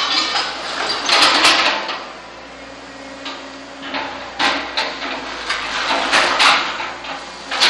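An excavator loading demolition rubble into a small dumper: debris clattering and scraping with repeated sharp knocks, over the steady running of the machines' engines. The knocks are loudest about a second in and again in a cluster between four and seven seconds.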